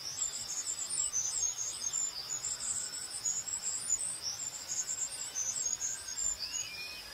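Crickets chirping in a night-time ambience: a steady high trill with many short, overlapping chirps above it.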